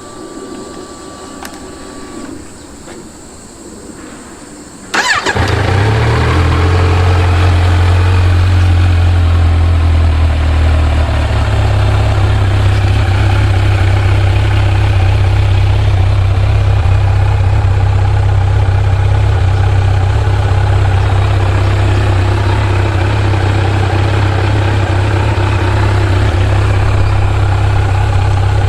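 Kawasaki Z900's 948 cc inline-four starting warm on its stock exhaust about five seconds in, then idling steadily; the idle settles slightly lower about eleven seconds in.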